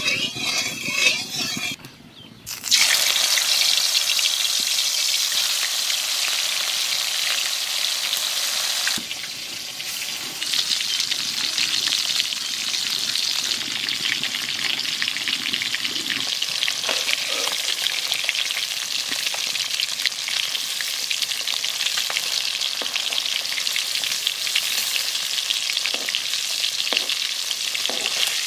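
Climbing perch frying in hot oil in an aluminium kadai: a loud sizzle starts suddenly about three seconds in, dips briefly, then carries on steadily. A few light taps of a steel spatula against the pan come later.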